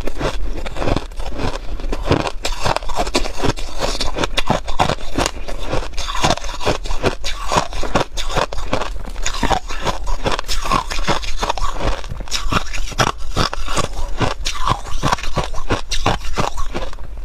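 Hard ice being crunched and chewed close to a clip-on microphone: a dense, steady run of sharp cracks and crackles, with some scraping as chunks of ice are broken apart by hand.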